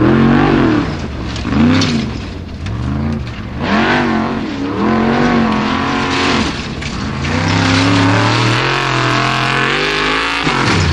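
Unlimited-class off-road racing buggy's engine revving hard in repeated bursts, its pitch rising and falling as the throttle is worked over the mud and rocks. Near the end it is held at a steadier high rev for a few seconds, then drops off sharply.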